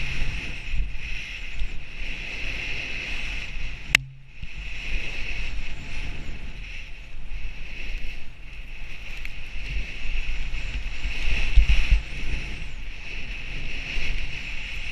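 Wind rushing over the microphone of a skier's action camera, with low buffeting, mixed with the hiss of skis running through deep powder snow. A sharp click about four seconds in.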